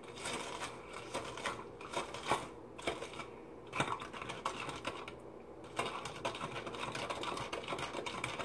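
A spoon stirring juice with undissolved sugar and Kool-Aid powder in a plastic cup, making rapid, irregular clicks and scrapes against the cup's sides and bottom.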